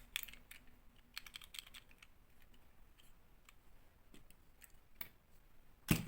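Scattered light clicks and taps of small plastic toy pieces and packaging being handled, irregularly spaced with a small cluster about a second in and a louder click near the end.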